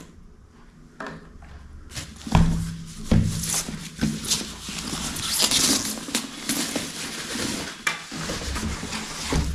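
Rustling and crinkling of the white bag around an SMK full-face motorcycle helmet as the helmet is pulled out of it, with two dull knocks about two and three seconds in from the helmet being handled.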